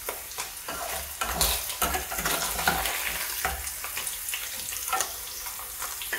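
Paneer cubes sizzling in hot oil in a stainless steel frying pan, with a spoon repeatedly scraping and clicking against the pan as the pieces are scooped out.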